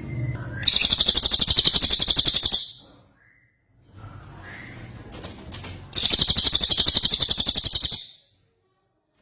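Songbird singing two long, very high, rapid trills, each about two seconds long, with a pause between them. A faint low hum runs underneath.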